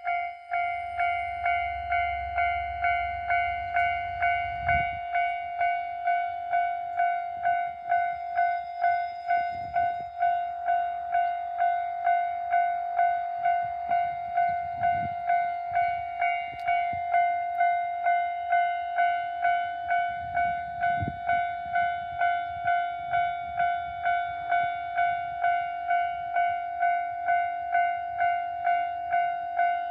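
Japanese level crossing warning bell ringing steadily, a pulsing electronic tone at about two strikes a second, sounding while a train is due at the crossing. A faint low rumble comes in the first few seconds, with a few faint thumps later.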